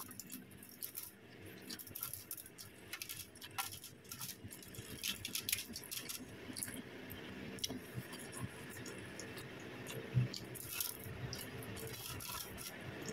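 Aluminium foil crinkling under fingers as fries are picked up off it: soft, irregular crackles and rustles.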